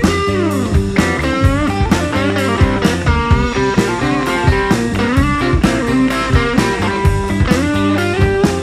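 Background rock music: a bluesy guitar playing lead lines with bent, sliding notes over a steady beat.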